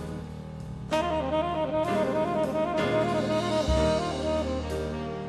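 Live jazz band: a saxophone plays a melodic line with a wavering pitch over bass and drums. The saxophone comes back in about a second in.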